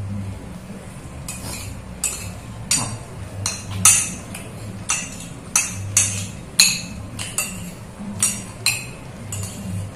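Metal spoon clinking and scraping against a clear glass bowl while scooping food, a quick irregular run of sharp clinks starting about a second in.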